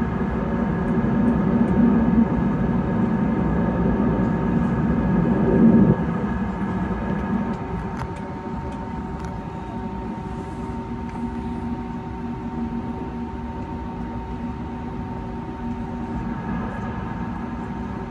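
Cabin noise of an Airbus A320neo holding on the ground with its engines at idle: a steady hum with a constant whine. A louder rumble in the first few seconds drops away sharply about six seconds in, leaving the steady idle hum.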